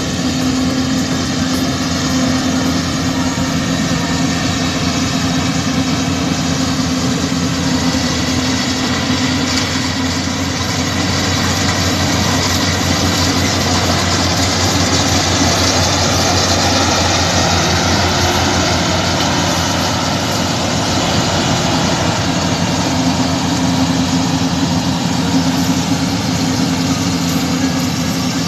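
Rice combine harvester running steadily as it cuts the paddy: a constant engine hum under a mechanical whirring, louder around the middle as the machine passes close.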